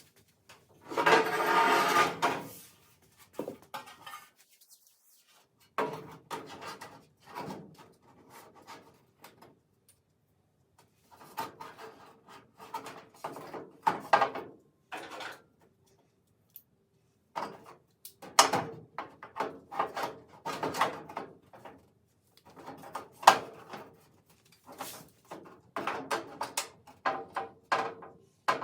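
A sheet-metal inner rocker panel being handled and fitted against a vehicle body: irregular metal clanks, knocks and scrapes, with a long, loud scraping rattle about a second in.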